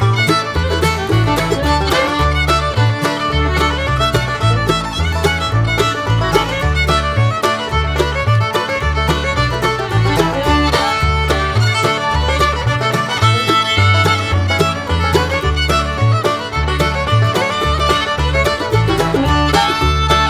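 Instrumental background music with a bass line that moves note by note, loud and continuous.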